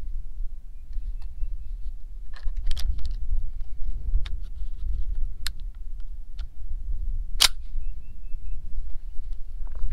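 Metallic clicks and clacks of an M1 Garand being loaded by hand: an eight-round en-bloc clip pressed into the receiver, with one sharp snap about three-quarters of the way through, the loudest sound. Low wind rumble on the microphone throughout.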